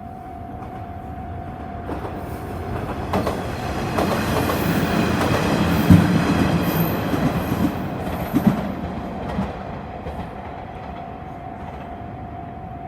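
A diesel train passing over a level crossing while the crossing's warning bell keeps sounding as a steady tone. The train grows louder to a peak about halfway through, its wheels clacking over rail joints several times, then fades away.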